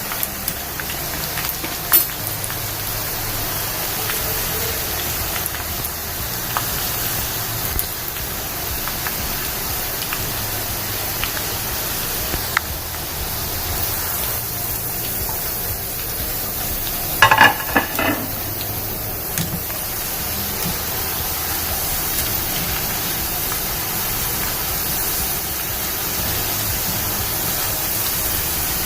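Soaked chana dal deep-frying in hot oil, a steady sizzle while it is still frothing and not yet done. There is a brief clatter of a few strikes about 17 seconds in.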